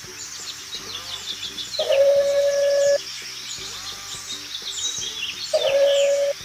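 Small birds chirping continuously, with a loud steady held tone of about a second sounding twice, about two seconds in and near the end.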